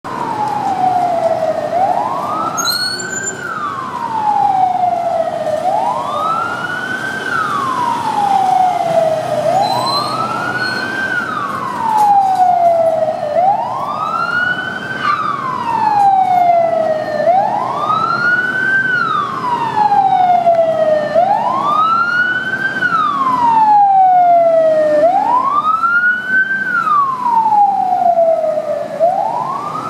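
Fire engine siren wailing, each cycle rising quickly in pitch and falling back more slowly, repeating about every four seconds, over the low noise of traffic. The truck approaches and passes close near the end.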